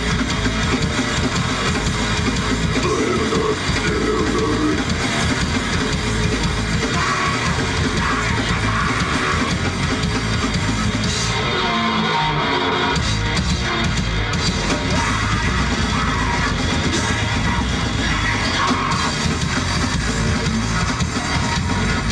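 Live rock band playing loud and without a break: electric guitar and drum kit.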